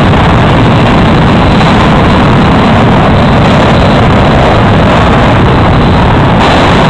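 Jet dragsters' turbine engines running hard with afterburners lit at the start line, a loud, steady jet roar.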